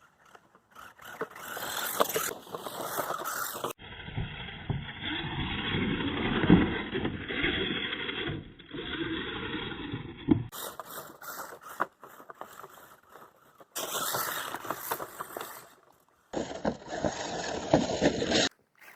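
Rally car running on a loose dirt forest stage, its engine working with tyres scraping over the surface, heard in several short takes that cut in and out abruptly.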